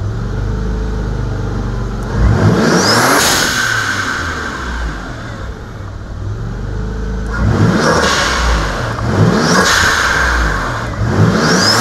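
Nissan VG30DET twin-turbo V6 revved four times from idle, each rev rising in pitch and ending in a rush of air as the really loud blow-off valve vents. The engine settles back to idle between revs.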